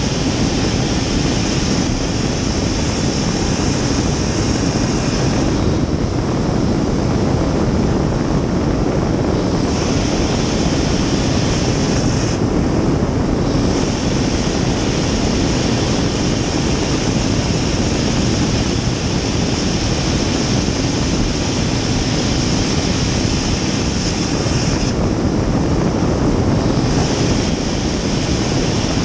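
Gas-turbine-powered river racing jet boat running flat out: a loud, steady rush of turbine and water noise heard from inside the enclosed cockpit. The higher hiss thins briefly three times, without a break in the running.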